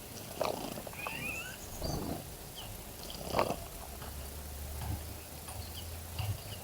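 Small wild birds at a garden bird bath: a few short chirps, mostly about a second in, and brief splashes and flutters in the water. A low steady hum runs underneath through the second half.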